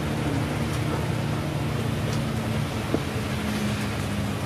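Tobu bus running on wet roads in heavy rain, heard from inside the cabin: a steady low engine drone under a hiss of road and rain noise, with a single short knock about three seconds in.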